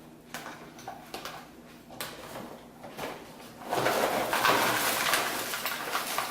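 A few faint clicks, then from a little past halfway a loud, sustained rattle of many small hard pieces, typical of dry crunchy cereal being poured from the box into a bowl.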